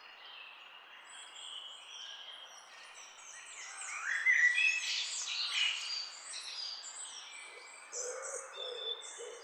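Chorus of several birds chirping and whistling at once, busiest about halfway through, with lower-pitched calls joining near the end.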